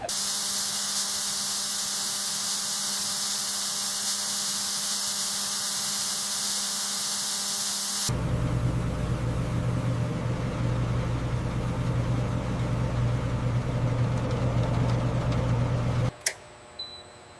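Factory machinery: a loud steady hiss for about eight seconds, which cuts abruptly to a low machine rumble with a steady hum. The rumble stops suddenly near the end, leaving a few faint clicks.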